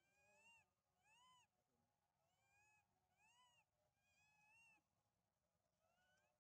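Baby long-tailed macaque crying: six high, whimpering calls in a row, each rising then falling in pitch and lasting about half a second, the last one fainter. This is the hungry crying of a baby begging for food.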